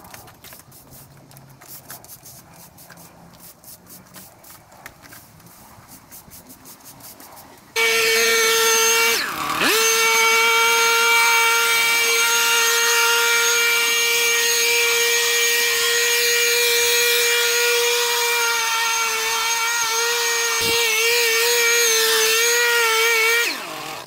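A battery-powered tool's electric motor starts suddenly about eight seconds in and runs with a loud, steady high whine. It sags in pitch briefly about a second and a half later and recovers, wavers a little near the end, then winds down. Before it starts there are only faint scattered clicks.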